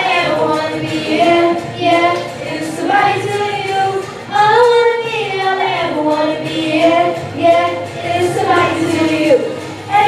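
A group of young girls singing a song together into handheld microphones, their voices amplified.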